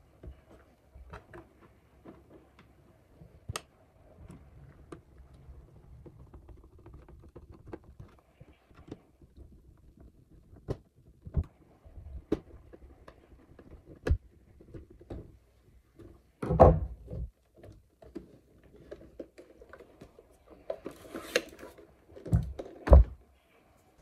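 Small clicks and scrapes of a screwdriver and hands working on the plastic underside of a Vileda VR302 robot vacuum as the wheel-module cover screws are driven back in. Louder thunks come about two-thirds of the way through and twice near the end, as the plastic robot is turned over and set down on a wooden table.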